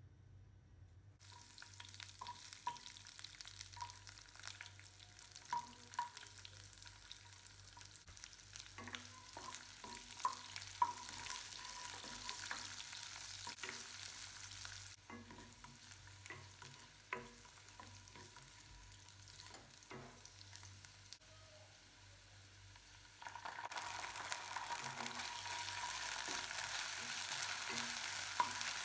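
Food sizzling in oil in a pan while being stirred, with scattered taps and scrapes of a spatula against the pan. The sizzle gets suddenly louder about three-quarters of the way through.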